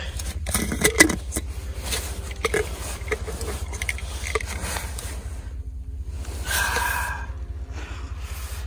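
Rustling of tent and clothing fabric with irregular small clicks and scrapes as gear is handled in a small tent, over a steady low rumble.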